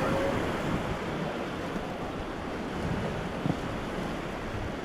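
Rushing river water with wind buffeting the microphone, a steady noisy wash, and a brief knock about three and a half seconds in.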